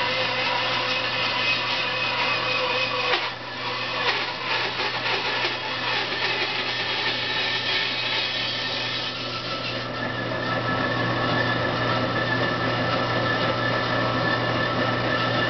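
INCA bandsaw running and cutting through a turned wooden canoe blank, a steady hum under the noise of the blade in the wood. The sound eases briefly about three seconds in.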